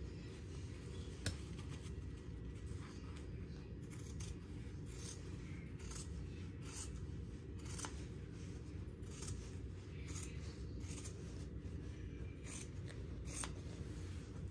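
Scissors snipping through a heavy canvas drop-cloth backing, trimming the excess from the back of a tufted rug, with about a dozen crisp cuts at roughly one a second.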